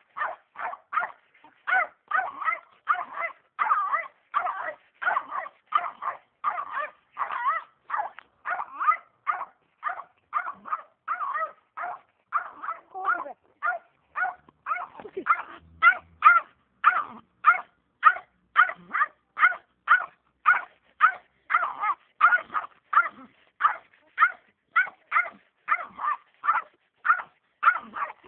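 Small dog barking over and over at a steady pace of about two barks a second.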